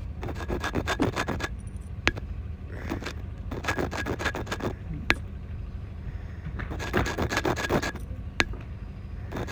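Fingers scraping and rubbing in sand as miniature model cauliflowers are pulled up from a toy garden bed, in repeated spells of scratchy sound. A few single sharp clinks come as pieces drop into a small steel bowl.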